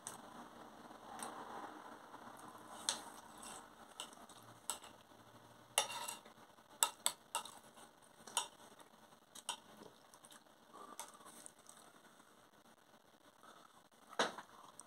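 A person eating soft food (sausage and mash), chewing, with a metal spoon scraping and clinking on a china plate; scattered sharp clicks, most of them about six to ten seconds in.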